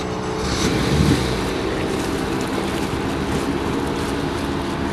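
Motorboat engine running at low speed as the boat pulls away from the dock: a steady drone, briefly louder about a second in.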